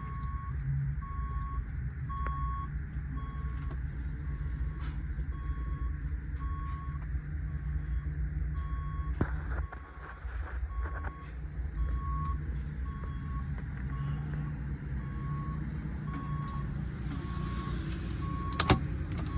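A vehicle's reversing alarm beeps evenly, about once a second, over the steady low rumble of a running engine. The beeping stops near the end, and a couple of clicks fall in the middle and near the end.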